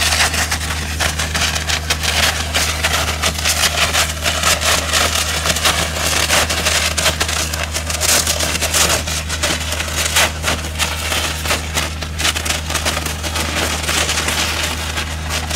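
Aquajet Aquacutter 710V hydrodemolition robot's high-pressure water jet blasting concrete off a quay wall: a dense, continuous crackling rattle of water and breaking concrete over a steady low machine drone.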